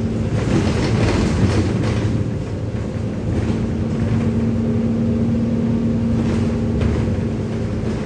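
Alexander Dennis Enviro 200 bus on the move, heard from inside the saloon: its 6.7-litre diesel engine and Allison automatic gearbox give a steady drone along with road and body noise. The steady hum drops away about half a second in, under a rush of road noise, and comes back about two seconds later.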